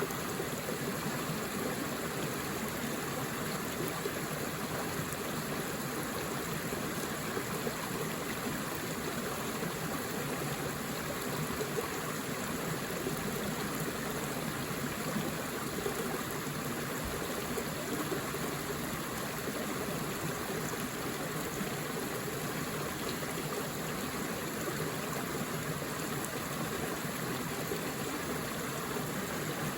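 Forest stream flowing over rocks: a steady, unbroken rush and babble of running water.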